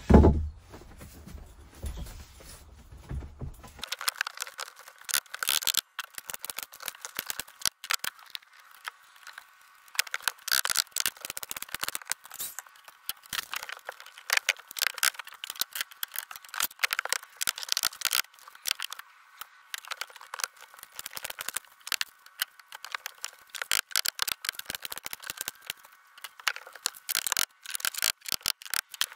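A loud knock right at the start. It is followed by a dense, irregular run of clicks and rattles from hand work on the wooden wall panels, thin-sounding with no low end from about four seconds in.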